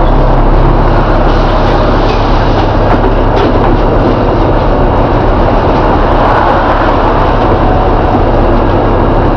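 Volvo B7TL double-decker bus running along the road: a loud, steady engine drone with road rumble.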